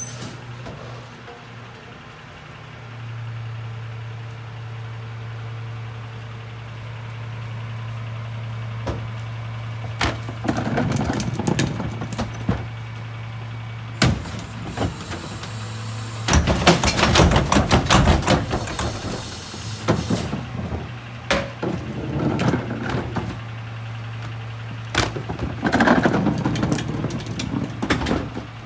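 Rear-loader garbage truck's engine idling with a steady low hum that grows louder about three seconds in. Over it come bursts of clattering and banging as wheeled trash carts are handled and tipped at the rear hopper, the loudest stretch roughly midway.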